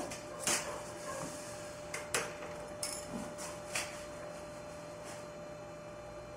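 A handful of sharp clicks and knocks, someone handling tools and parts at a motorcycle, spaced irregularly over the first four seconds, over a faint steady hum.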